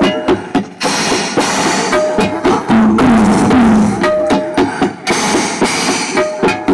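Loud drum-led music over a public-address system: a steady beat of drum strikes with a short figure that repeats about every two seconds.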